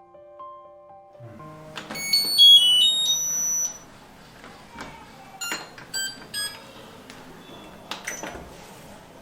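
Washing machine's electronic control panel beeping: a short tune of high beeps at changing pitches, then several single beeps with button clicks as settings are chosen, and a knock near the end. Soft piano music fades out at the start.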